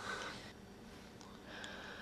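Faint heavy breathing, one breath at the start and another near the end.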